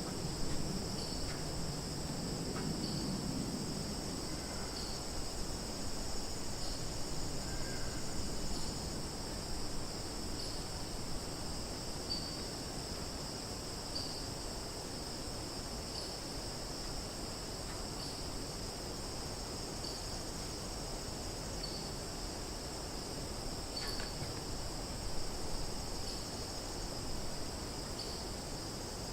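Summer forest ambience: a steady, high-pitched chorus of insects, with a faint sharper pulse about every two seconds.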